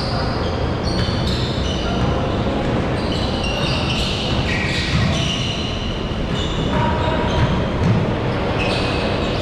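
Basketballs bouncing on a hardwood gym court, with many short high squeaks from shoes on the floor, ringing in a large hall.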